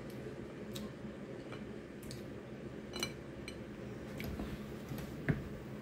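Eating sounds: scattered small clicks and taps as crab legs are handled and dipped in a glass of butter sauce, the sharpest a little after five seconds in, over a low steady hum.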